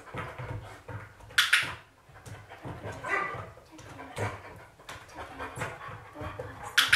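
Border collie's paws tapping and thumping on a carpet-topped wooden box, with the dog whining now and then. Two loud, sharp clicks stand out, about a second and a half in and near the end.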